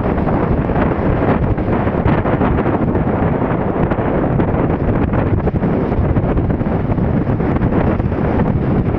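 Strong wind buffeting the microphone: a loud, steady, low rumble of wind noise.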